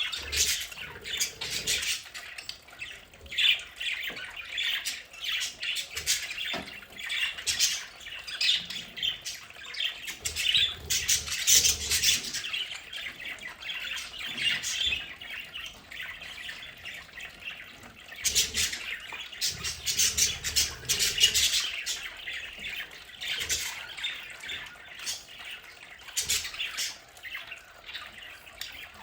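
A flock of budgerigars chattering, with dense, rapid chirps, warbles and squawks overlapping throughout.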